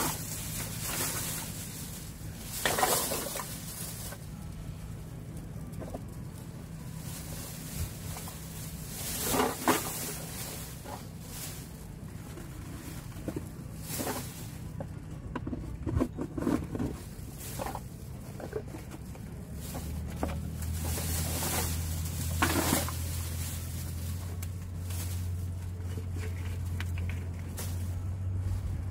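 Clear plastic rubbish bag rustling and crinkling in short irregular bursts as litter is picked off the rocks and dropped into it. A low steady hum comes in about two-thirds of the way through.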